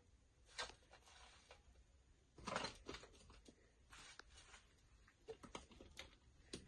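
Faint, irregular rustling and light clattering of crisp bread pieces being picked up by hand and dropped into a bowl and a plastic tub, loudest about two and a half seconds in.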